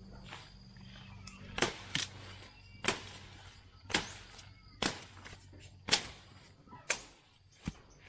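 A series of about eight short, sharp cracks, roughly one a second, over a faint steady high insect whine.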